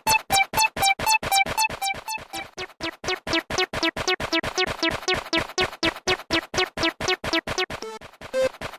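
Electronic railroad-crossing alarm tones ringing in quick succession, about three strokes a second. The strokes alternate between two pitches at first, then drop to a lower repeated tone about two and a half seconds in, and the pattern changes again near the end.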